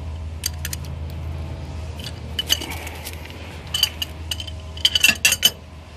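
Scattered light metallic clinks and taps of an adjustable wrench and a -6AN hose fitting being handled, several close together near the end, over a steady low hum.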